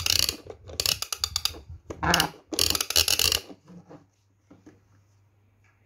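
Plastic ratchet clicking from the red tap handle of a LeapFrog toy house being twisted, in about four quick bursts of rapid clicks. It stops about halfway through, leaving only a few faint knocks.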